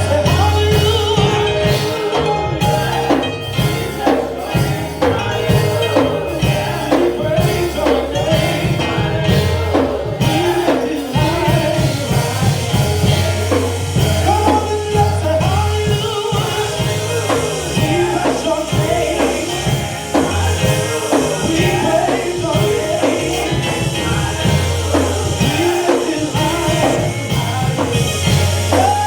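Live gospel praise music: singers with a band, steady bass, drum kit and tambourine.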